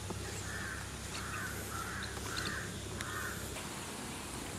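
A crow cawing five times in a row, a harsh call every half second or so.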